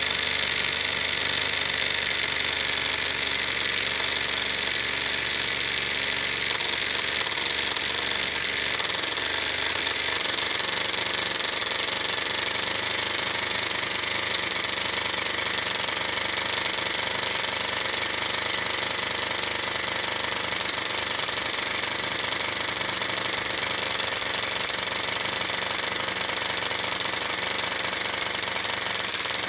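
Halo Liney five-cylinder radial live steam model engine running steadily at speed, spinning a wooden propeller: an even exhaust hiss with mechanical chatter.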